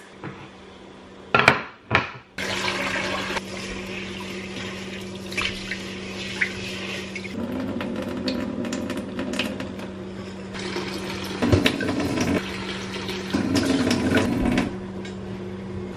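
A couple of dish clatters, then water from a kitchen tap starts running into the sink about two seconds in and keeps running, growing fuller at times, with scattered clinks of dishes.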